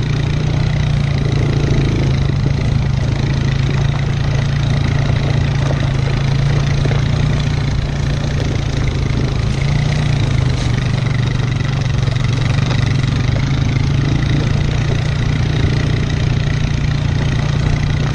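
Four-wheeler (ATV) engine running steadily under load as it tows a dirt bike on a strap along a dirt trail.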